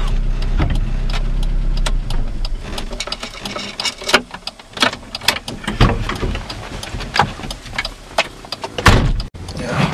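Car engine idling with a steady low hum, which fades after about two seconds. Then come scattered clicks and knocks as a bag is loaded into the car's trunk, with a heavy thump near the end.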